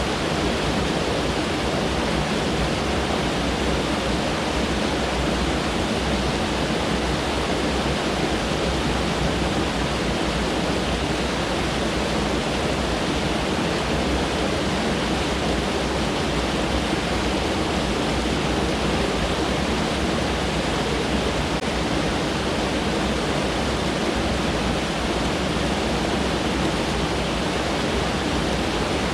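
Mountain stream rushing over rocks: a steady, loud wash of running water with no breaks.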